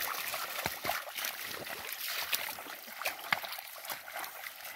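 Bare feet wading through shallow muddy water and sucking mud, with irregular splashes and squelches from each step.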